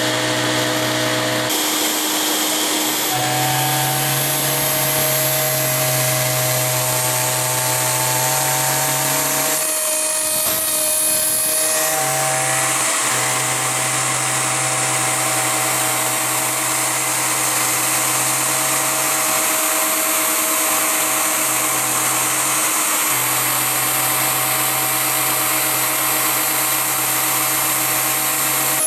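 ShapeOko 2 CNC router milling 3 mm aluminium plate with a 3 mm two-flute end mill: the spindle's steady high whine under a dense cutting hiss. A low hum underneath stops and starts again several times as the machine works through its passes.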